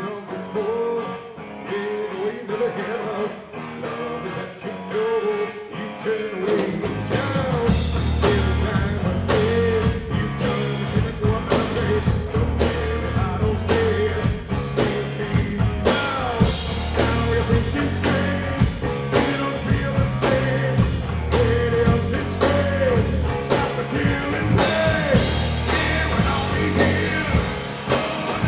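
Rock music with a singing voice, guitar and drum kit. It opens quieter, then the bass and drums come in fully about seven seconds in and it carries on at a steady level.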